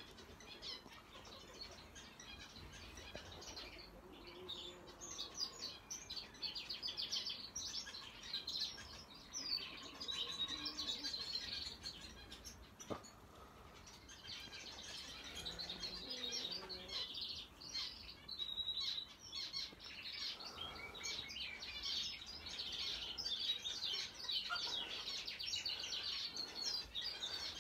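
Pet canary singing, fairly faint: long runs of rapid trills and warbling notes, with a short lull about halfway through before the song picks up again.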